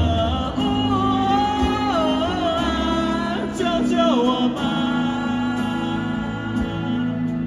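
Live rock band playing: a singer holds long, wavering wordless notes over the band, sliding down about four seconds in. After that the guitars and bass carry on.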